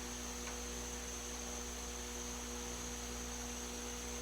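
Steady electrical hum with a faint high whine over light hiss, unchanging throughout.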